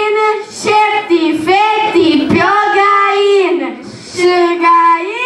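A group of children singing together into microphones, one melody with long held notes.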